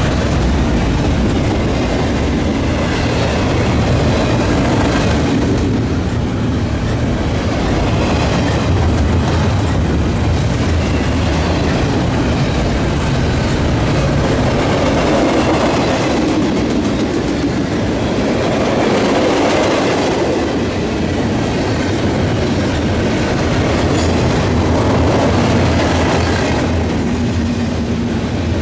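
Double-stack intermodal container train passing at track side, its steel wheels rolling loud and steady over the rails as the well cars go by.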